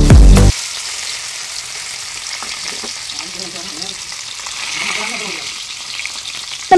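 Background music that cuts off about half a second in, then a steady sizzle of hot oil around a whole masala-coated tilapia shallow-frying in a pan.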